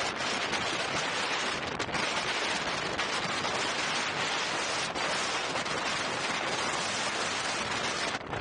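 Wind rushing over the camera microphone while riding an electric unicycle at speed: a loud, steady, dense rush with only a few brief dips.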